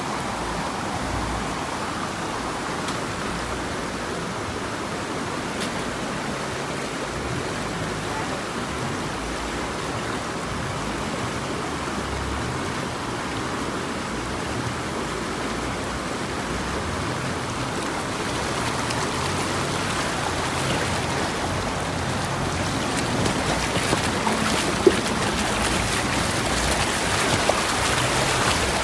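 Steady rush of a mountain stream's flowing water, growing louder and crackling more in the last ten seconds, with one sharp knock about 25 seconds in.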